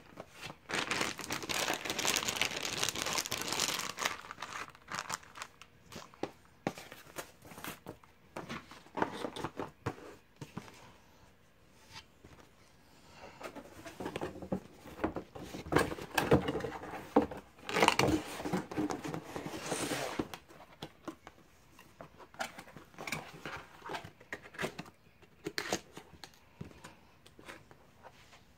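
Plastic wrapping crinkling and rustling as it is handled, with knocks and taps from a cardboard box and foam packaging being moved. The crinkling is densest in the first few seconds, there is a louder spell of rustling and knocks in the middle, then scattered taps.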